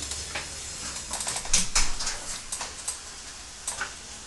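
A small dog's claws clicking and tapping irregularly on a tiled floor as it hops about on its hind legs, with a quick run of clicks about a second and a half in.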